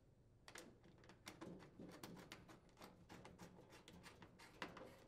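Faint, quick clicking of a worm-drive hose clamp on an aluminium dryer vent elbow being tightened with a screwdriver, about four clicks a second, with one louder click near the end.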